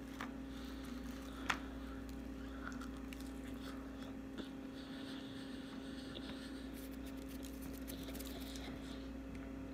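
Soft chewing of fried tilapia, with faint mouth and biting noises over a steady low electrical hum, and one small click about a second and a half in.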